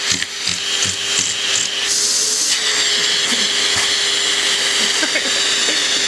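Vacuum cleaner running steadily, a motor whine under rushing air at the hose nozzle; the hiss of the airflow brightens about two seconds in.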